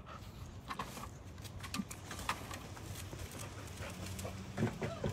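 A dog moving about on hard ground, its claws clicking and tapping irregularly.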